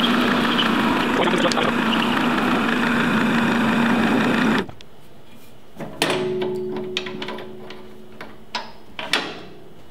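Bernardo Profi 400 V metal lathe running while a parting tool cuts off the workpiece: a loud, steady cutting noise over a hum that stops suddenly about four and a half seconds in. A fainter hum follows and fades, with a few light clicks near the end.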